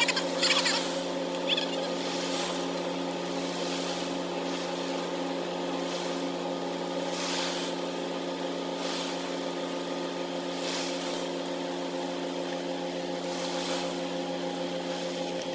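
A ship's diesel engine running steadily: an even drone made of several steady tones. A rough scraping noise fades out in the first second.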